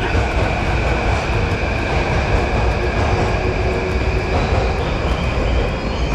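Yamanote Line electric commuter train moving along the platform: a loud, steady low rumble of wheels on rails with a steady high whine over it.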